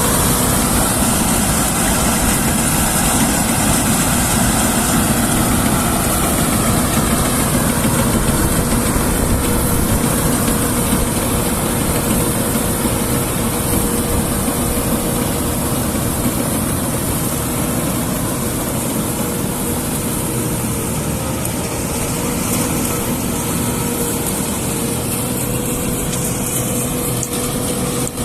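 Combine harvester running steadily at work, its engine and threshing machinery giving a constant drone with a steady high whine.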